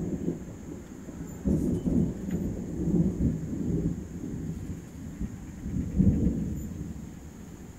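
Low rumbling noise that comes and goes in uneven surges, strongest near the start and again about six seconds in.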